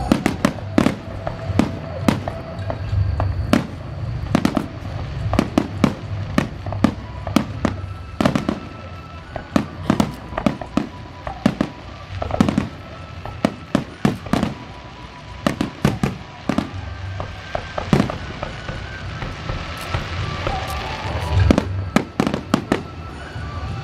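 Aerial fireworks display: dozens of shells bursting in rapid, irregular succession, sharp bangs often in quick clusters over a low rumble.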